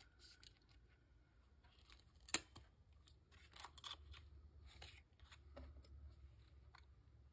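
Small craft pieces handled by hand: scattered light clicks and rustles, with one sharp click about two seconds in.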